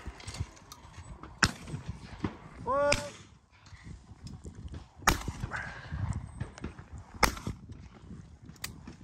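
A short shouted call, then two shotgun shots about two seconds apart as a clay target is engaged. A fainter single crack comes about a second and a half in.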